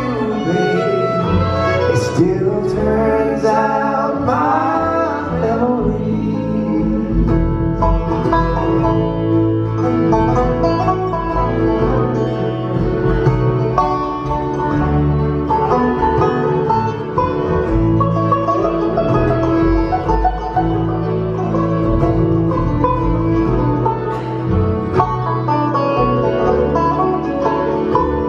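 Live bluegrass band playing: fiddle, acoustic guitar, upright bass, banjo and dobro together, heard through the venue's sound system.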